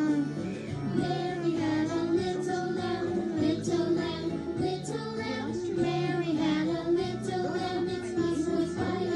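Children's music with a sung melody over a steady instrumental backing.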